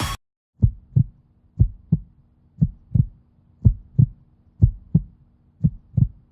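Heartbeat sound effect: six double thumps, lub-dub, about one a second, over a faint steady low hum.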